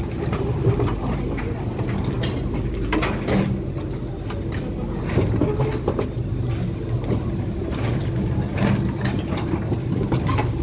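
Small tourist mine train's open carts rolling slowly on rails: a steady low rumble with scattered metallic clanks and clicks.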